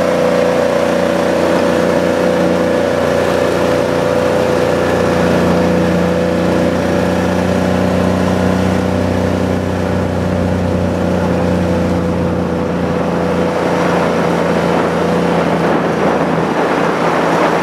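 Kawasaki Mule utility vehicle's engine and drivetrain running steadily under way, with a steady whine that fades out near the end.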